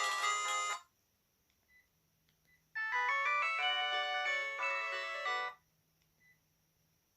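Polyphonic ringtone melodies from a Sharp GX1 mobile phone, played as short previews one after another: one cuts off under a second in, and another plays for about three seconds in the middle, with quiet gaps and a few faint short blips between them.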